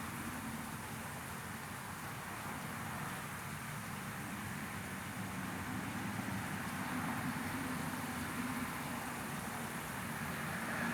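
Steady rushing noise with a low hum underneath, unbroken and even, a continuous white-noise ambience for sleep.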